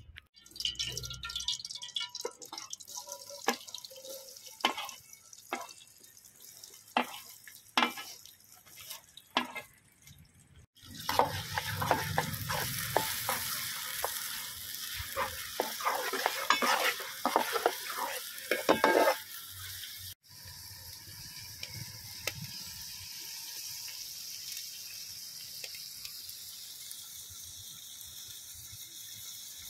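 Chopped onions and green chillies frying in hot oil in a large aluminium pan over a wood fire. A few sharp clicks come first; then, for about eight seconds in the middle, a metal ladle stirs and scrapes the pan over loud sizzling; the rest is a steady sizzle.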